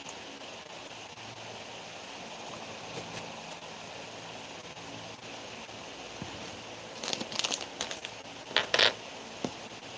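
Steady low background hiss, with a run of short crinkling, rustling noises about seven seconds in and two louder ones near nine seconds, like something being handled.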